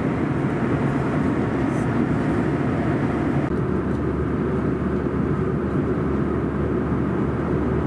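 Cabin noise of a CRJ700 regional jet in flight: a steady low rumble of engines and airflow, with no distinct events.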